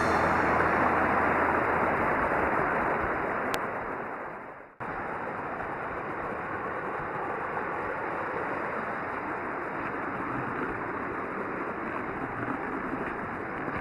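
Creek water rushing over rapids and small falls as a steady noise. It fades away just under five seconds in, then comes straight back and runs on steadily.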